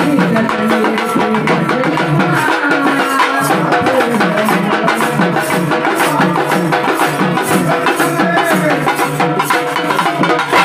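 Tamil folk drum ensemble playing: pambai drums beaten with a stick together with round frame drums, keeping a fast, steady, continuous rhythm.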